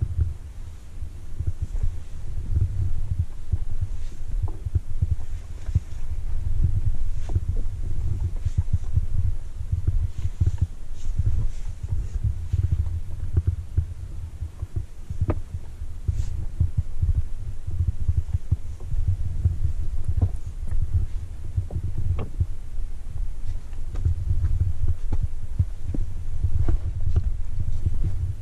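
Wind buffeting the microphone: an uneven low rumble, with a few faint light clicks scattered through it.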